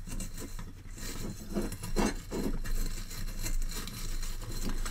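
Brass wire tip-cleaning wool scrunching and scraping as fingers push it into the plastic holder of a soldering iron stand: irregular scratchy rustles, a few louder ones about two seconds in.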